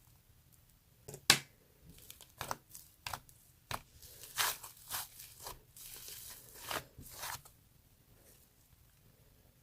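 Whipped-cream-and-flour dough being worked by hand: a run of sharp, sticky pops and crackles as it is pulled and squeezed, the loudest about a second in, with a busier crackling stretch in the middle, stopping about two seconds before the end.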